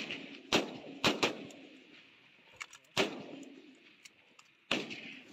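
Rifle fire in a firefight: about six separate shots at irregular intervals, two of them in quick succession about a second in. Each shot trails off in a long echo.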